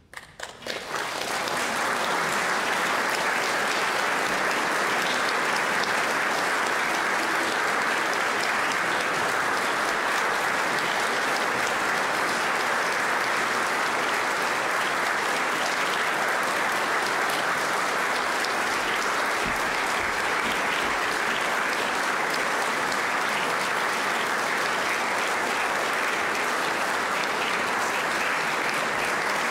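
Audience applauding. It breaks out suddenly from near silence and swells within about two seconds into steady clapping.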